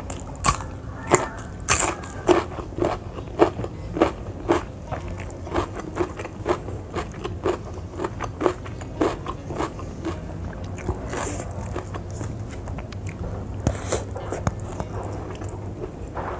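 Close-up mouth sounds of someone biting and chewing crunchy raw vegetables, with sharp crunches about twice a second for the first nine seconds, then softer chewing with a few more crunches.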